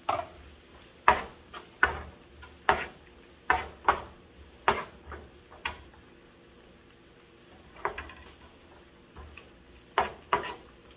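Spatula knocking and scraping against a frying pan while stirring chopped bell peppers and onion: sharp clacks about once a second, pausing briefly past the middle, then a few more near the end.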